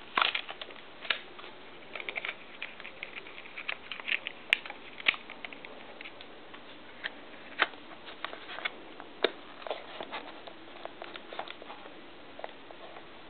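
Irregular clicks, taps and rustles of hands loading a 35mm film cartridge into a Yashica Kyocera T2 compact camera, the plastic body and film handled piece by piece. The clicks come thick in the first half and thin out later.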